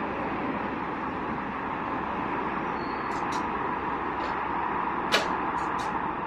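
A steady, even rumbling hum with several sharp clicks in the second half, the loudest about five seconds in.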